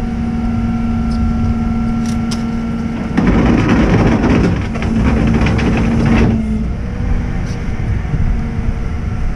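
Rollback tow truck's engine idling steadily with a constant low hum. From about three seconds in, a louder rough rushing noise covers it for about three seconds, then the steady idle carries on.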